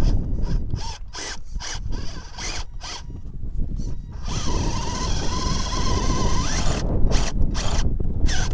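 Electric motor and geared drivetrain of a scale RC rock crawler whining in short throttle bursts as it climbs rock. Partway through it gives one longer, steady whine of a few seconds, then goes back to short bursts, over a low rumble.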